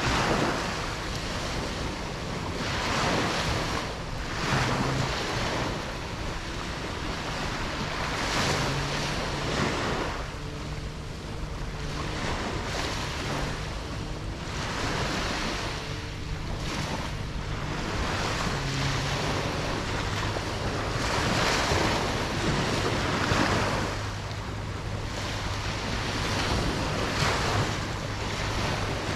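Ocean waves washing onto a beach, the surf swelling and ebbing every few seconds, with some wind noise on the microphone.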